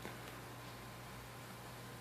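Faint steady hiss with a low hum: room tone.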